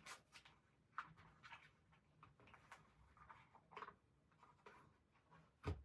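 Near silence with faint, scattered rustles and clicks of paper leaflets being handled, and a short knock near the end.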